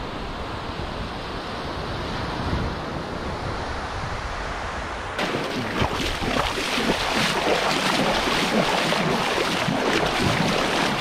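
Small waves washing up on a beach, a steady rush of surf. About five seconds in it turns louder and choppier, with splashing as a person runs into the sea through the shallows.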